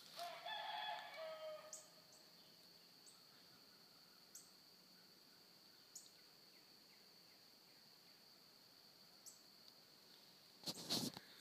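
A beagle bays once, a single drawn-out call of about a second and a half that falls slightly in pitch: a hound giving tongue while running a rabbit. A faint steady high-pitched drone continues underneath, and a brief noisy burst comes near the end.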